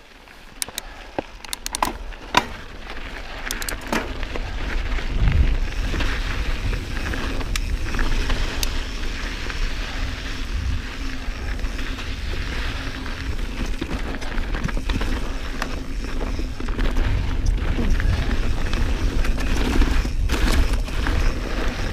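Mountain bike riding a dirt singletrack: a few clicks and knocks from the bike, then tyres rolling over dirt and rocks with the frame and drivetrain rattling and a heavy rumble. It grows louder over the first few seconds as speed builds and then holds steady.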